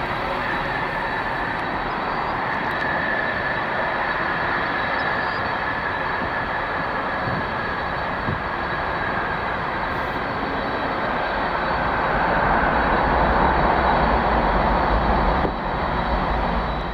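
Jet engines of a Western Global MD-11 freighter: a steady rush with a thin whine that swells louder and deeper a few seconds before the end.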